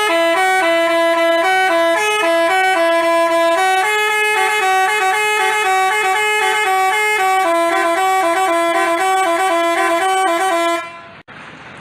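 Basuri telolet musical bus horn playing a quick tune of stepped notes, two tones sounding together, which stops about a second before the end, followed by a single click.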